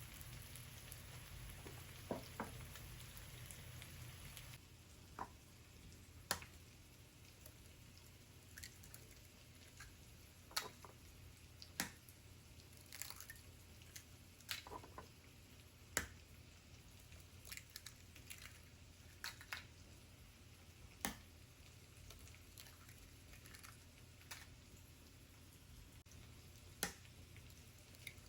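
Faint, irregular clicks and drip-like ticks, about one every second or two, over a low steady hum; a steady hiss drops away about four and a half seconds in.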